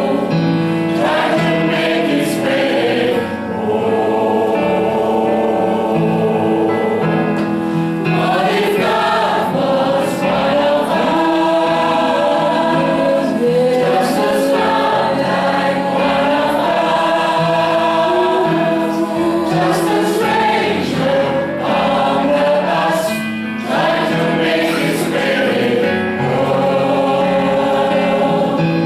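A choir singing gospel music with held chords over a steady instrumental bass line.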